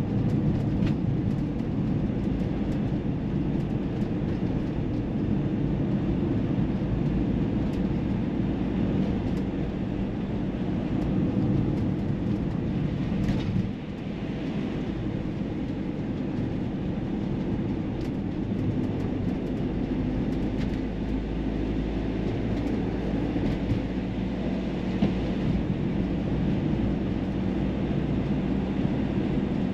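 Car driving on the road, heard from inside the cabin: a steady low rumble of engine and tyre noise, easing briefly about halfway through.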